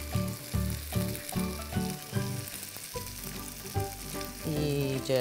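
Egg-soaked bread sizzling as it fries in butter in a hot frying pan, with light background music.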